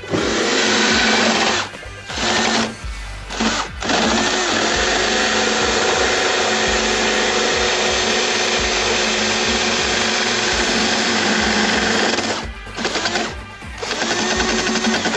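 A power tool running in several bursts with short stops between them, the longest about eight seconds, over background music.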